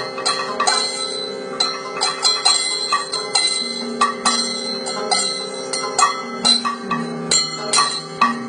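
Kathakali instrumental accompaniment between sung verses: quick, uneven strikes of ringing metal percussion over a steady drone.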